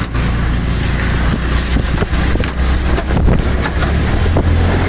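Heavy rain: a loud, steady hiss with scattered taps and a low rumble underneath.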